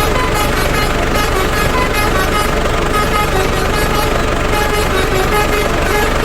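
Telolet 'basuri' multi-tone truck horn playing a quick melody of short notes at changing pitches, over the steady rumble of a running engine.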